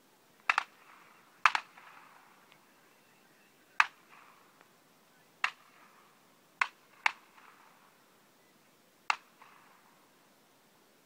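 Shotgun reports at a clay shoot: a string of sharp cracks, some in quick pairs, each trailing off in a short echo.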